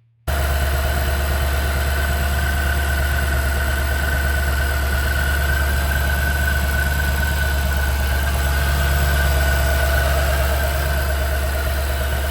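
Whipple-supercharged 6.1-litre Hemi V8 of a 2009 Dodge Challenger SRT8 idling steadily. A deep low rumble runs under a steady high whine.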